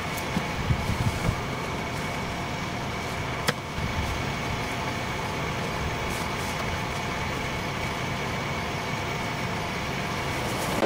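Steady outdoor background noise with a low rumble and a faint steady high tone, with a few soft knocks about a second in and one sharp click about three and a half seconds in.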